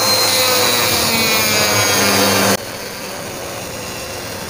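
Electric mini rotary tool running through its flexible shaft, a pink grinding stone spinning against dry wood. The whine sinks slightly in pitch, then about two and a half seconds in it turns abruptly quieter and steadier.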